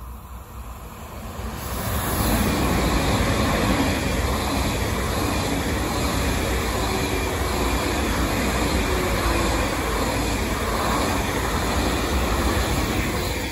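ICE high-speed electric train passing close by at speed: its noise swells about two seconds in, then a steady loud rush of wheels on rails as the long set of carriages runs past.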